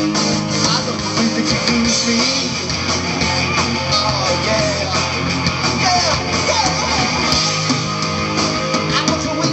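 Live hard rock band playing loud, with electric guitars and a full drum kit, heard from within the audience.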